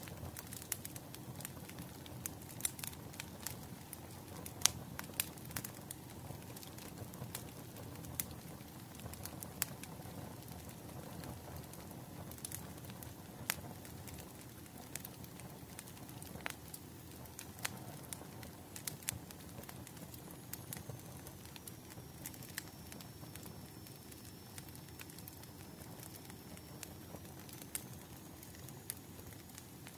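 Wood fire crackling: irregular sharp pops and snaps over a low, steady rush of burning.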